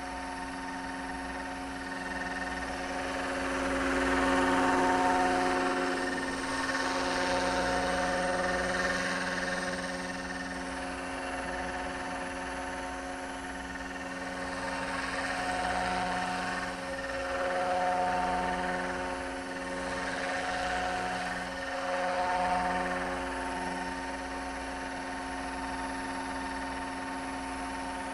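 Roban Superscale AS350 RC helicopter hovering low and manoeuvring slowly: a steady drive whine with rotor noise that swells and eases several times as it moves about.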